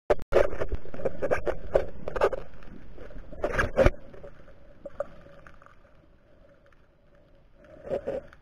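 Underwater sound picked up by an action camera in a waterproof housing: a run of loud knocks and clatter, then quieter with a faint steady hum, and two more knocks near the end.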